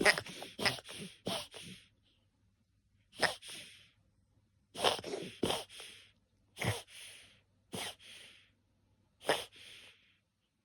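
A person gasping for air on waking, in sharp, catching breaths. There is a quick run of gasps in the first two seconds, then separate gasps a second or more apart with quiet between, each trailing off into a breathy hiss.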